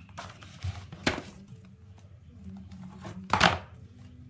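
Hardcover picture book being handled and shut: a soft knock about a second in, then a louder thump as the cover closes a little past three seconds.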